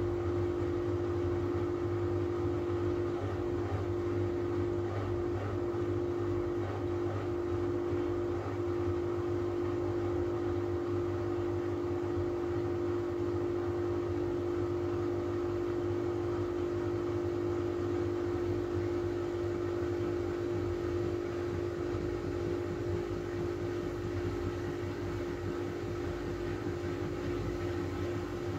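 Miele W433 front-loading washing machine in a low-speed interim spin, its motor and drum running with a steady whine, the drum turning at around 300 rpm.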